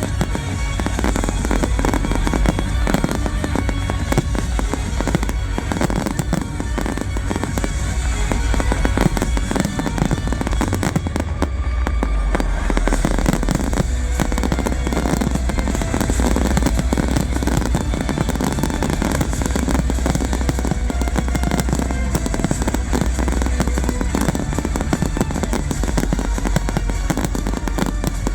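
Fireworks going off in a dense, unbroken barrage of bangs and crackles over loud music with a heavy bass.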